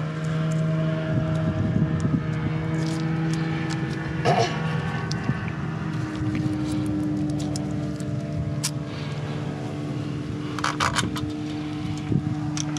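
A steady motor hum with a few short, sharp clicks of small metal hardware being handled.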